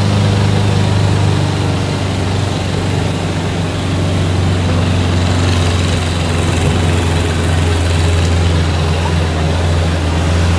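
Farm tractor engine running steadily as it hauls a loaded passenger trailer, a continuous low drone.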